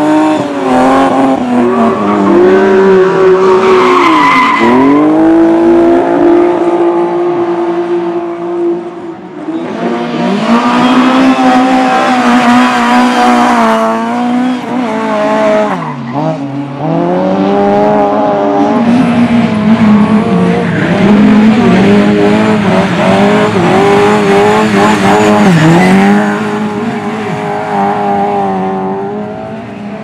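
Race cars on a loose dirt track at high revs, their engines rising in pitch and then dipping sharply several times at lifts and gear changes through the corners: first a BMW E36 3 Series, later a Lada. The noise of tyres sliding on the loose dirt runs beneath the engines.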